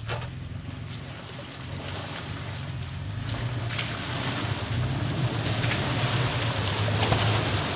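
Toyota FJ Cruiser's 4.0-litre V6 engine pulling at low speed through a muddy, water-filled trail section, with water and mud splashing around the tyres and growing gradually louder. A single knock at the very start.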